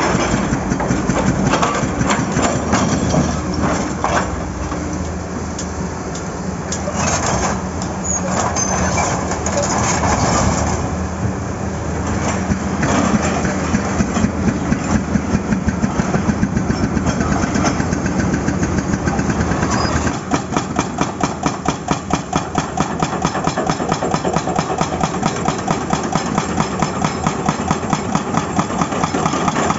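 Excavator diesel engine running with a hydraulic breaker hammer at work on asphalt: irregular knocks and crunching at first, then from about halfway the breaker pounds in a fast, even rhythm of strikes.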